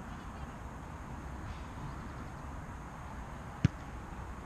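Outdoor ambience at a football pitch: a low steady rumble, with one sharp knock about three and a half seconds in.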